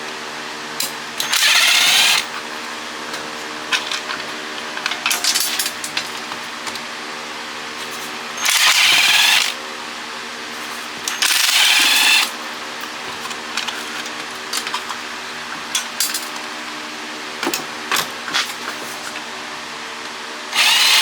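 A handheld power tool runs in four short bursts of about a second each while removing fasteners from a water pump motor, with small metal clinks and knocks between the bursts. A steady hum runs underneath.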